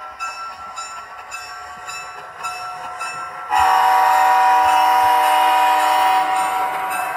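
HO scale Amtrak F40PH model locomotive's onboard sound playing as it pulls its passenger cars in: a rhythmic clicking about twice a second, then a long multi-note horn blast starting about three and a half seconds in and lasting nearly three seconds.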